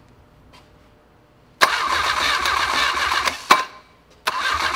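Starter motor cranking a Volvo Penta AQ130C four-cylinder marine engine in two bursts, the first about two seconds long and ending in a sharp click, the second starting near the end. The engine turns over without firing, a sign of the ignition giving no spark.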